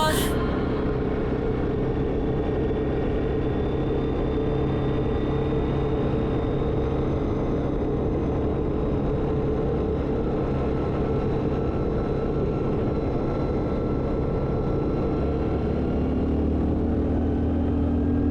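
ATV engine running steadily under way, a constant engine drone with a little more low-end and a slightly higher note about sixteen seconds in.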